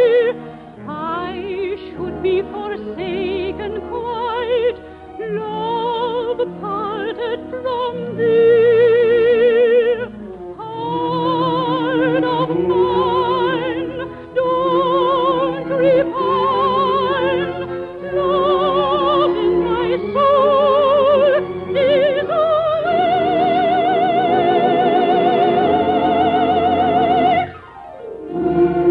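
Operetta singing with orchestra, held notes with wide vibrato, rising to one long held note near the end. The sound has the narrow, top-cut quality of an old radio recording.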